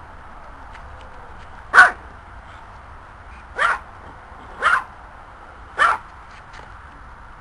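Yorkshire terrier barking four times in short, sharp barks, the first the loudest and the other three about a second apart.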